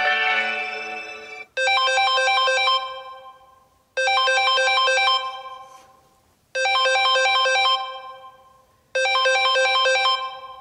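Samsung Galaxy Note 10 Lite ringtone: a short phrase of quick notes that fades out, repeated four times about every two and a half seconds. Before it, the sustained chords of the previous ringtone cut off about one and a half seconds in.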